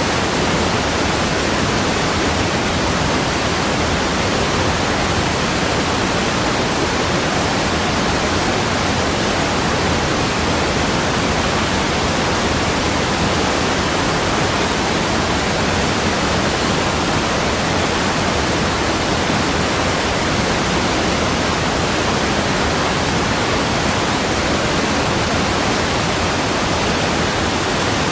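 Rushing water making a steady, even hiss with no rises, breaks or single splashes.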